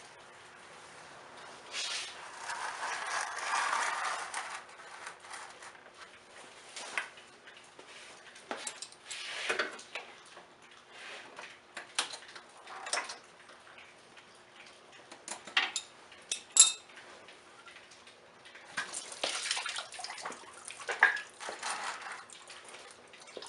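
Lower radiator hose being worked off a Toyota Corolla: scattered metallic clinks and knocks from tools and the hose clamp, with coolant splashing out into a catch pan in two short spells.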